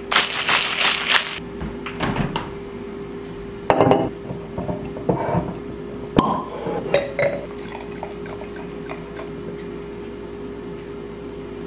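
White wine poured from a bottle into a stemmed wine glass, with glass clinks and clatter on the countertop and one sharp knock about six seconds in. A faint steady hum runs underneath.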